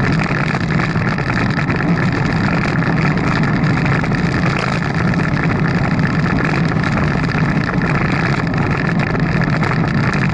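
Steady rushing noise of a bicycle being ridden: wind on the action camera's microphone mixed with the rolling rumble of tyres on the road, even throughout with no letup.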